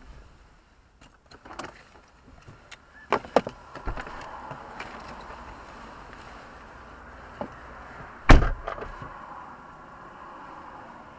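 Car door handled: a few sharp clicks and clunks as it is opened, then one heavy slam as it is shut, about eight seconds in.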